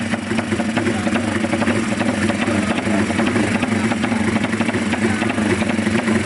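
Drag-race motorcycle engines idling at the start line, a steady even run with no revving.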